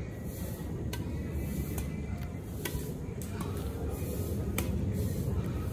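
Badminton rackets striking a shuttlecock in a rally: sharp taps roughly once a second, over a steady low rumble.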